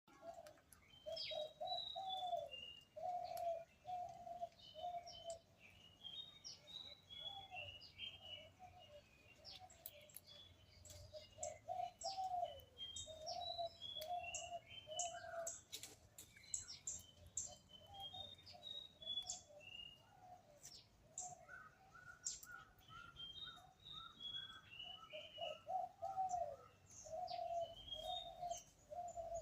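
Birds calling and singing: runs of a repeated low call alongside higher, falling song phrases that recur every few seconds, with scattered sharp ticks.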